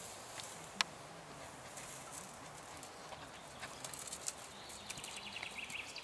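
Dog hanging from and tugging on a springpole rope: scattered clicks and knocks, with one sharp click a little under a second in. A bird sings a short phrase of quick notes that falls in pitch near the end.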